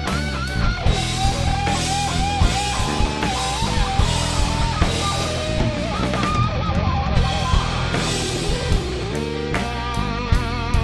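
Rock band playing an instrumental passage: an electric guitar lead with bent, wavering notes over drums and bass.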